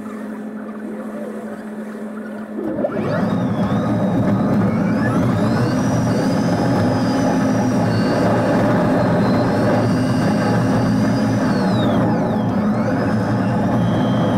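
Cabin sound of a Yutong E12 electric single-decker bus, sped up. A steady low hum while it waits, then about three seconds in it pulls away: road noise swells and the electric drive's high whine rises, holds while cruising, dips and falls near the end, then rises again.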